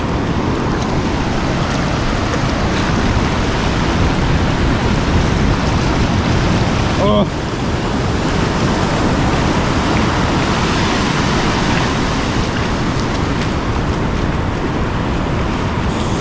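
Ocean surf washing and breaking in the shallows around the wader, a steady loud rush, briefly cut off about seven seconds in.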